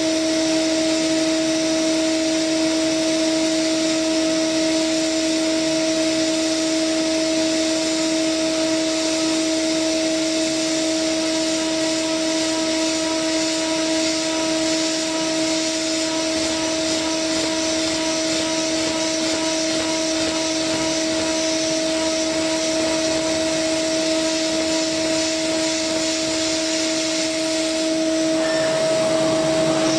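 CNC milling machine spindle cutting metal with a small coated end mill: a steady whine over a hiss, with the tone wavering briefly near the end.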